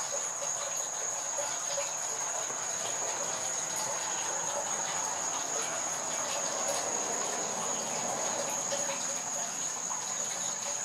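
Insects trilling steadily at one high pitch, over an even background hiss.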